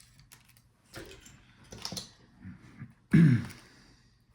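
Small clicks and taps of laptop parts being handled as the cooling fan and its cable come out of the case, with one louder brief sound a little after three seconds whose pitch falls.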